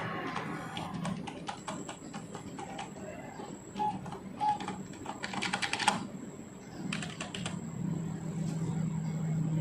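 Computer keyboard keys pressed repeatedly in quick clusters, function keys tapped to get into the BIOS while the PC boots. Two short beeps come about four seconds in.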